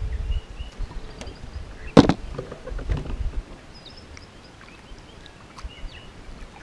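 A single sharp knock about two seconds in, followed by a few lighter knocks, as someone moves about and handles gear in a small aluminium jon boat. Birds chirp now and then, and wind rumbles on the microphone at the start.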